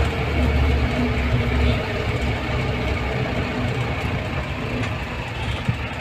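A vehicle's engine running steadily, a low continuous rumble without speech.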